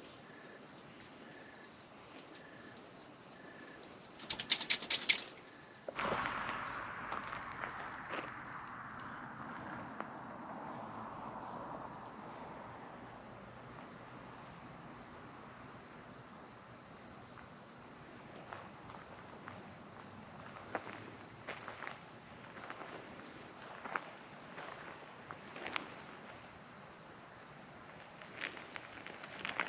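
Crickets chirping in a steady, even rhythm. A short noisy burst comes about four seconds in, and a few faint clicks follow later on.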